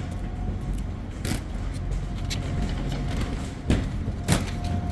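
Steady low mechanical rumble with a faint steady whine, broken by four sharp knocks, the loudest two near the end.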